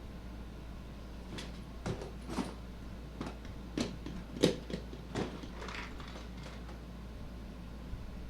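About ten irregular clicks and knocks of tools and metal parts being handled during a scooter repair, the loudest about halfway through, over a steady low electrical hum.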